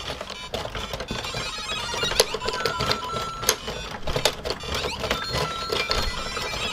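Hand-cranked scrolling-screen mechanism of the LEGO NES TV model: plastic gears and the tile belt clicking and rattling irregularly as the crank turns. The interactive LEGO Mario figure on top adds short electronic beeps and tones from its speaker as it reads the passing tiles.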